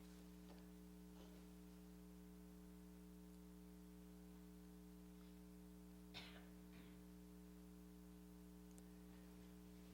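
Near silence: room tone with a steady electrical hum, and a faint short knock about six seconds in.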